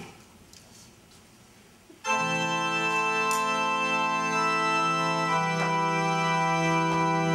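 A sharp click, then about two seconds of quiet room tone, after which an electronic keyboard starts playing sustained organ-like chords that hold steadily without fading, moving to a new chord a little over five seconds in.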